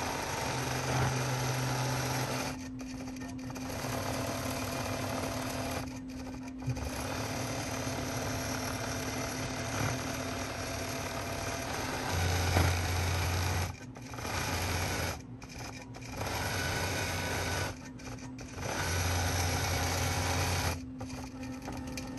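Statler Stitcher computer-guided longarm quilting machine stitching steadily through the quilt layers. Its running sound drops out briefly about six times as it stops and changes direction along the stitched lines.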